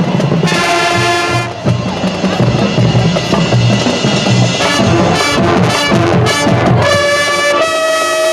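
High school marching band playing its field show: brass section with percussion, a held brass chord early on, busier playing with drum hits in the middle, and a sustained brass chord entering about seven seconds in.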